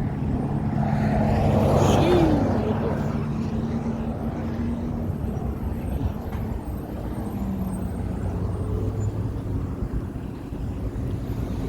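Street traffic: a motor vehicle's engine running, and a vehicle passing close by about two seconds in, its sound swelling and then falling in pitch as it goes by.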